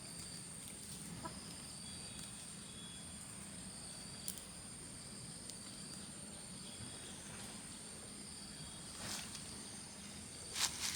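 Chickens clucking faintly over a steady high-pitched whine, with a few soft clicks.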